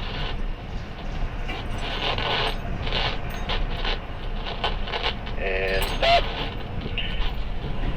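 Steel rigging hardware clinking and rattling in scattered short metallic knocks, over a steady low engine hum.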